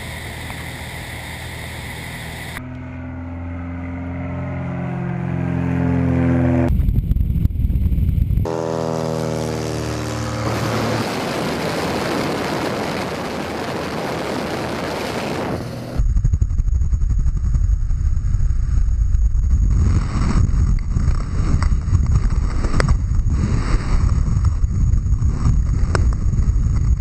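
Single-engine light airplane's engine running, its pitch sliding downward twice. Then a loud rush of wind, and from about two-thirds of the way in, heavy wind buffeting a camera strapped to a watermelon falling from the plane.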